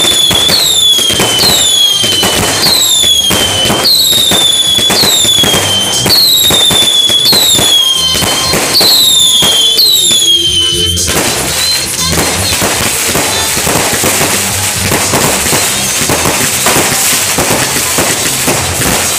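Fireworks display: shots fire about once a second, each with a whistle that falls in pitch and a bang. About eleven seconds in this gives way to a dense crackling of bursting shells.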